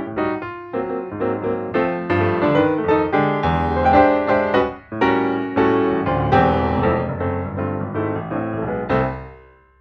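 Background piano music, a steady run of notes that fades out near the end.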